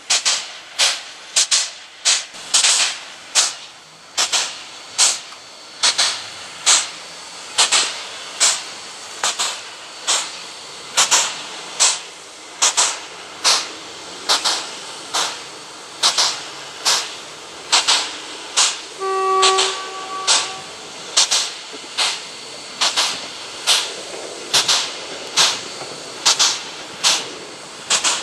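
Pt47 steam locomotive standing with its steam-driven air pump working: regular hissing puffs, roughly three every two seconds. A short whistle tone sounds about two-thirds of the way through.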